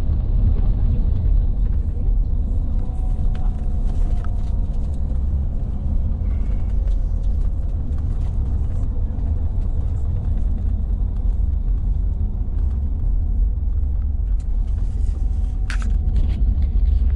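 Steady low rumble of a vehicle in motion, with faint thin squealing tones and a few light clicks over it.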